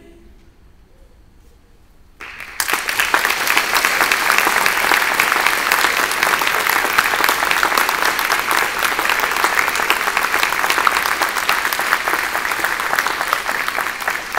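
Audience applauding a choir's finished song: a short hush, then dense clapping that starts suddenly about two seconds in and keeps going steadily.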